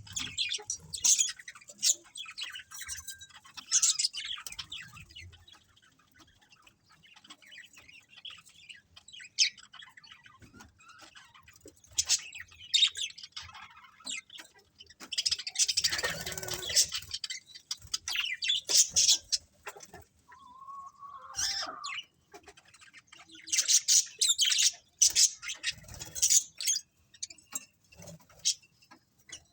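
A colony of budgerigars chirping and chattering in irregular bursts of short, high calls, with a quieter spell early on and a louder, rougher burst about halfway through.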